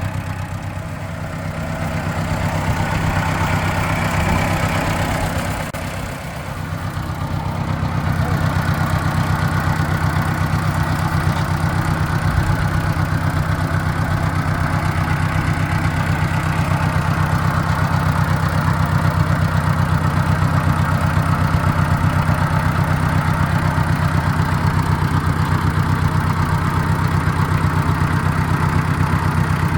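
Ford 650 tractor's four-cylinder gasoline engine running, newly got going after a carburetor adjustment. Its speed dips and rises twice in the first several seconds, then it runs steadily.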